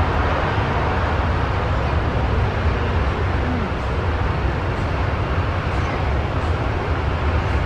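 Steady roar of a Boeing 737-200's JT8D turbofan engines as the jet rolls out along the runway after touchdown.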